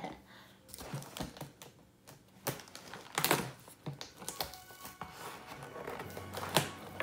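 Cardboard shipping box being worked open by hand: scattered clicks, taps and short scrapes of a tool against the taped cardboard flap.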